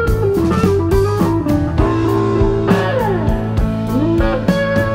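Background music led by guitar, with notes that slide up and down over a steady bass and beat.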